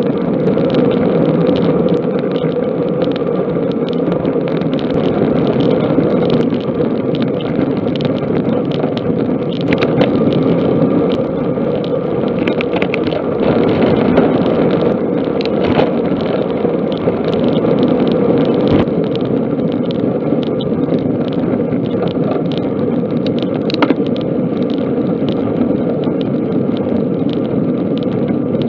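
Steady rush of wind and tyre noise from a road bicycle in motion, picked up by a camera mounted on the bike, with frequent small clicks and rattles from road vibration.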